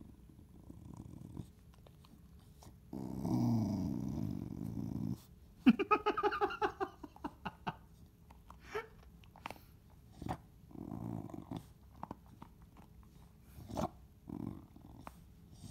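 Chow Chow growling low while guarding a piece of beef from a reaching hand, with a louder, longer growl about three seconds in. Then a loud, quick run of sharper, higher-pitched pulsed sounds, followed by scattered chewing clicks and a few more short growls.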